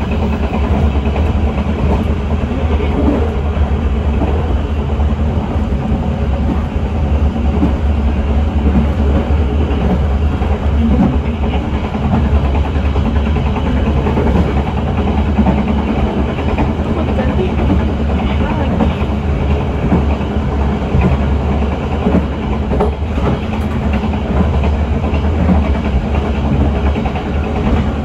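Passenger carriages of the Bengawan train running on the rails, heard from the rear of the train: a loud, steady rumble of wheels on track that holds through the whole stretch.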